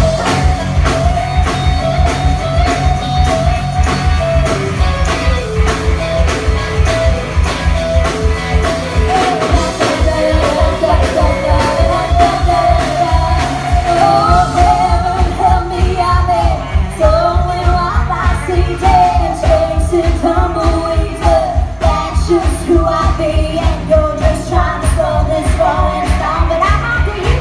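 A band playing a rock song, with a singer's voice over a steady, driving low beat; the vocal line grows stronger about halfway through.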